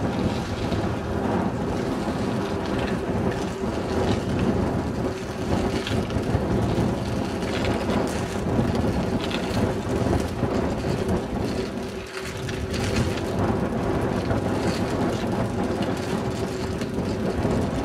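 Wind buffeting a helmet-mounted camera's microphone while riding along a paved road: a steady, deep rushing noise that eases briefly about twelve seconds in.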